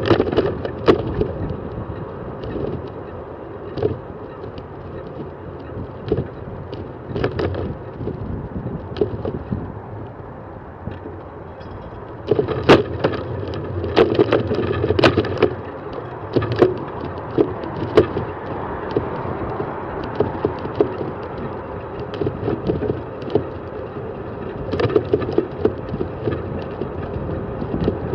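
Bicycle riding along a paved cycle path: steady rolling and wind noise with frequent rattling clicks and knocks over bumps and rough surface, busier and louder about twelve seconds in and again near the end.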